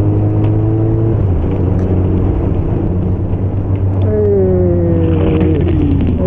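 Motorcycle engine running while riding, with wind rushing over the microphone. From about four seconds in, the engine note falls steadily in pitch as the bike slows.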